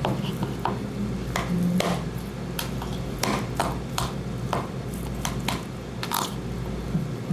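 Irregular sharp clicks and taps of small objects being handled, over a steady low hum.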